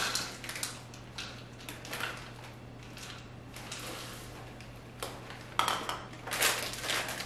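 A spoon stirring chocolate chunks into thick brownie batter in a mixing bowl, in short, irregular scraping strokes. The plastic bag of chunks crinkles loudest a little before the end.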